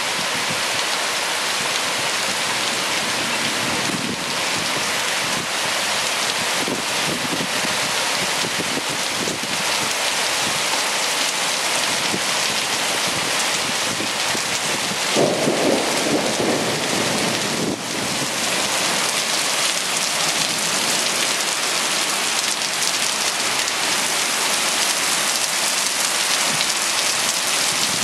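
Heavy rain pouring steadily in a thunderstorm, with a louder burst about fifteen seconds in, lasting a couple of seconds, likely a clap of thunder.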